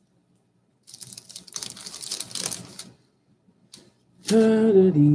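Crinkly rustling and crackling of a baseball card pack wrapper being torn open and the cards handled, for about two seconds. Near the end a loud, drawn-out sing-song voice starts.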